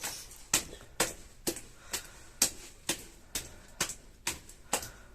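Broa dough of cornmeal and flour being beaten, making a steady series of sharp knocks about twice a second.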